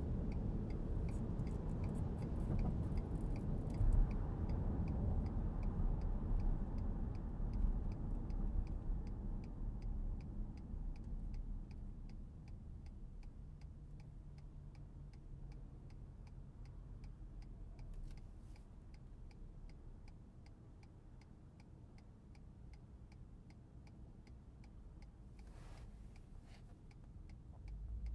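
Ford F-150 turn-signal indicator ticking steadily and evenly inside the cab, over the truck's low engine and road rumble. The rumble dies down about halfway through.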